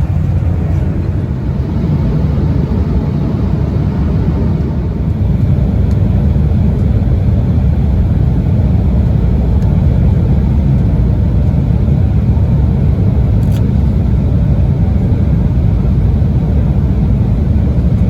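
Steady low rumble of an Embraer 175 regional jet's cabin in flight: engine and airflow noise, growing slightly louder about five seconds in. A faint tick sounds once near the end.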